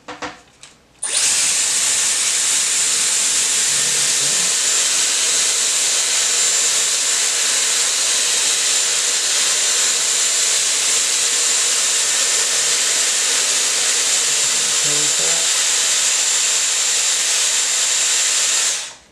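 Dyson Airwrap styler with its curling barrel in use: the fan blows a steady rush of air with a thin, high whine. It switches on about a second in and cuts off just before the end.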